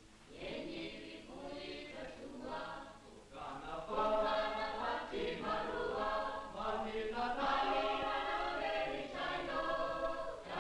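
A choir of children singing a song together, louder from about four seconds in.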